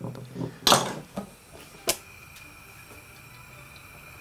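A kitchen knife chopping a carrot on a plastic cutting board: a few cuts in the first two seconds, the loudest just under a second in. After that there is a quiet stretch with a faint steady high tone.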